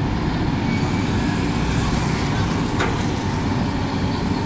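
Komatsu hydraulic excavator's diesel engine running with a steady low rumble while it works, mixed with motorcycles passing on the road. A single sharp click comes about three seconds in.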